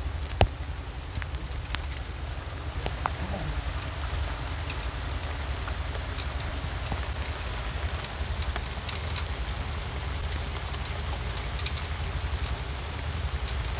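Steady rain falling on open ground, with scattered sharp drop hits and a steady low rumble underneath.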